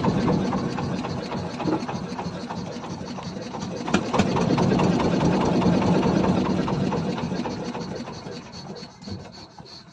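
Fishing boat's engine running steadily as the boat moves through the harbour, with a single sharp click about four seconds in. The sound fades out over the last few seconds.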